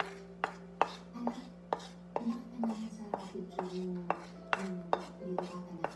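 A kitchen utensil knocking on a hard surface in an even run of light, sharp strikes, about two and a half a second, some ringing briefly, over a steady low hum.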